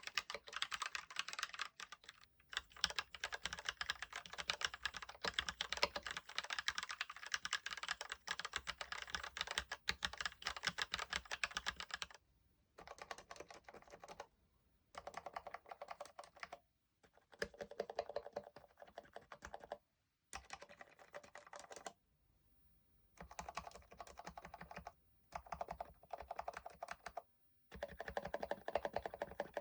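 Actto B703 mini mechanical keyboard being typed on fast, its Gateron Brown tactile switches spray-lubed. About twelve seconds in the steady typing gives way to short clusters of repeated presses on the stabilized long keys, with brief silences between them.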